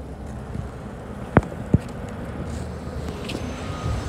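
Electric bus pulling in slowly alongside, a steady low rumble of tyres and street noise without an engine note. Two sharp clicks come about a second and a half in, a third of a second apart.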